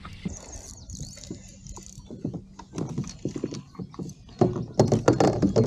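Quick, irregular hollow knocks and clatter of fishing gear being handled aboard a kayak, growing louder and busier over the last second or so.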